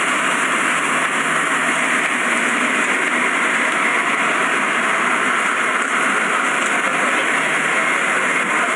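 Steady airliner cabin noise: an even, unbroken hiss with no change in level.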